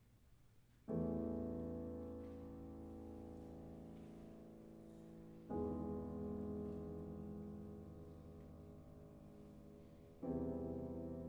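Slow piano music: three full chords struck about four and a half seconds apart, each held and left to fade, after a moment of quiet at the start.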